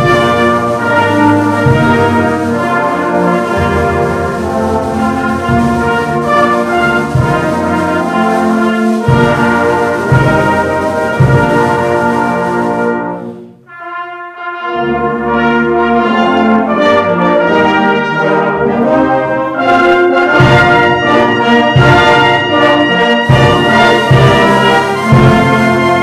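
Brass band of cornets, horns, trombones and basses playing a slow hymn tune live. The band breaks off briefly about halfway through, then comes back in.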